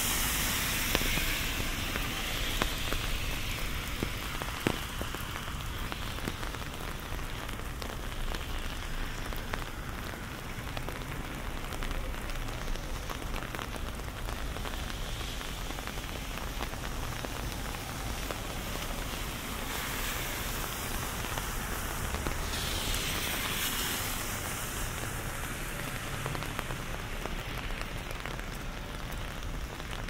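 Steady rain falling, with scattered drops ticking close by. A louder hiss swells near the start and again about two-thirds of the way through.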